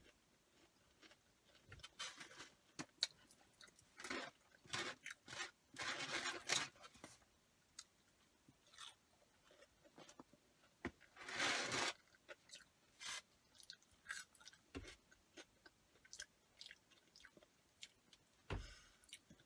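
Close-up chewing of curly fries: soft, intermittent crunches and mouth sounds with short clicks in between, and a couple of louder noisy bursts about six and twelve seconds in.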